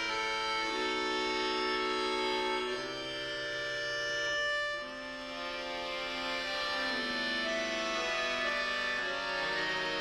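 A piano accordion and a button accordion (bayan) playing a slow duet in long held notes and sustained chords, the sound easing briefly about halfway through before the next chord.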